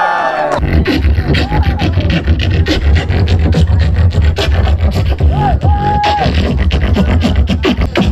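Beatboxing into a microphone over a PA speaker: deep bass kicks under rapid, sharp snare and hi-hat clicks, with a few short hummed tones. It starts about half a second in.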